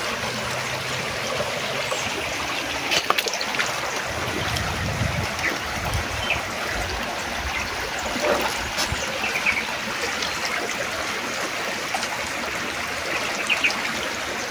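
Shallow stream running fast over rocks in a steady rush of water, with a few brief sharp splashes from wading.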